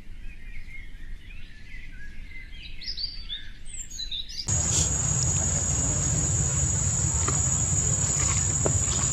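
Faint wavering chirp-like glides, then, from about halfway through, outdoor ambience: a steady high-pitched insect drone over a low rumble, with a few faint clicks.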